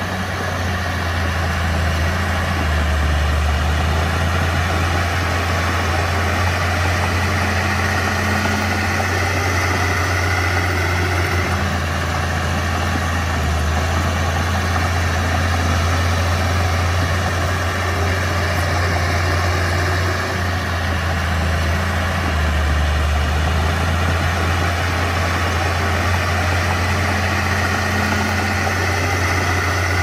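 Komatsu D31P bulldozer's diesel engine running steadily, a continuous low drone.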